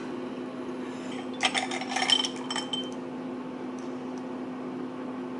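Small metal punch-clock parts clinking and clicking together for about a second and a half, with one brief ringing tone, over a steady low hum.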